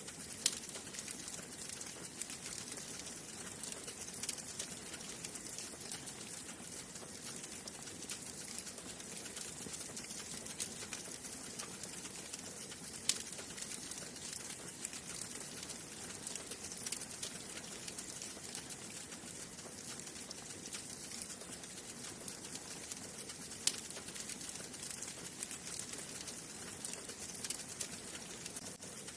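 Wood fire burning in a fireplace: a steady hiss full of small crackles, with three sharper, louder pops, one about half a second in, one near the middle and one later on.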